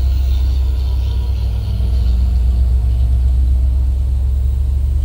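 Bus engine running steadily under load as the bus climbs a long, steep mountain grade, heard from inside the cabin as a deep, even rumble.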